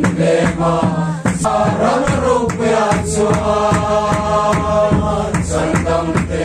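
A large group of people singing together, with a steady percussion beat keeping time.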